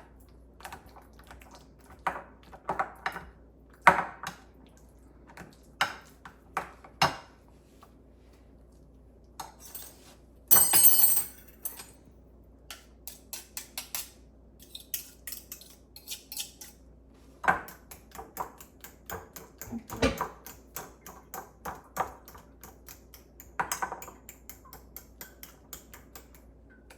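Kitchen utensils and dishes clinking and knocking against each other: scattered irregular taps and clicks, with one louder burst of noise about a second long near the middle.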